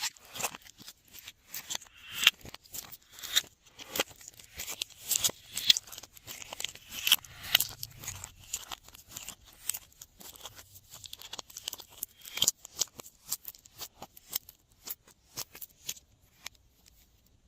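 Glossy slime being kneaded and mixed by hand, giving a rapid, irregular run of sticky clicks, pops and crackles that stops about a second before the end.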